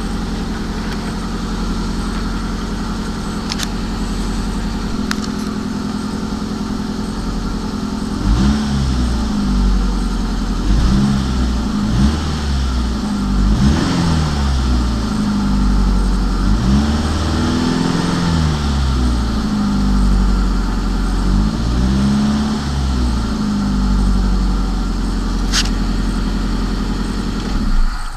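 VAZ 2111's 16-valve four-cylinder engine idling steadily, then from about eight seconds in revved up and let fall back again and again, and shut off at the end. It is being run after its hydraulic lifters were taken out and refitted, to hear whether the lifter knock is still there.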